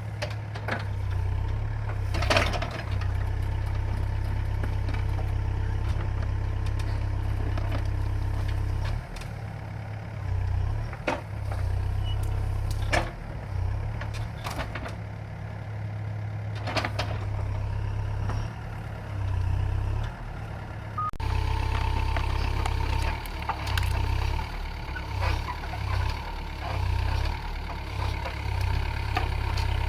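Diesel engine of a heavy earthmoving rig running under changing load while it works at a tree stump, with sharp metallic clanks now and then. About two-thirds of the way in, a steady whine joins the engine.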